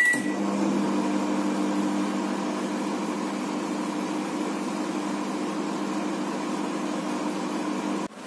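LG convection microwave oven beeps once as it starts, then runs with a steady hum while heating a container of water. The hum cuts off suddenly near the end.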